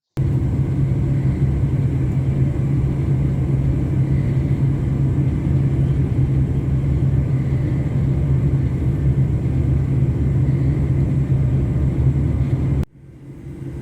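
Loud, steady rumble of trains running at speed, heard from inside a carriage of a Class 730 electric multiple unit as it passes a freight train. It cuts off suddenly near the end, leaving a much quieter running noise.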